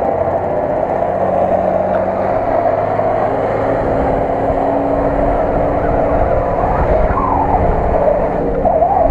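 Engine of a lifted off-road truck running steadily under load as it drives through mud, its note stepping in pitch as it goes. A wavering whine comes in about seven seconds in.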